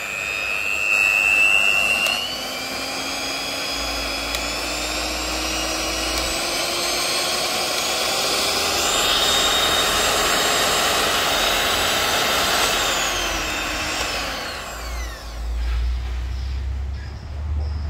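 Miyako HM-620 190 W hand mixer motor running unloaded with its wire beaters spinning in the air: a steady whine whose pitch climbs gradually, then falls and winds down to a stop about fifteen seconds in.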